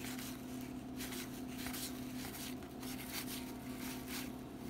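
Soft rustling and sliding of glossy 1991 Donruss baseball cards being flipped one behind another in the hands, over a steady low hum.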